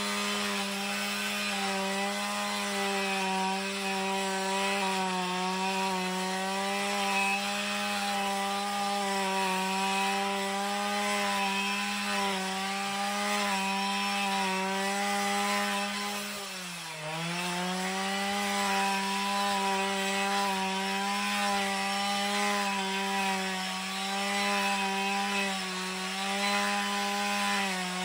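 Husqvarna 545RX two-stroke brushcutter running at high revs while cutting giant hogweed stalks. The engine note holds steady with slight wavering, dips briefly about two-thirds of the way through, then picks back up.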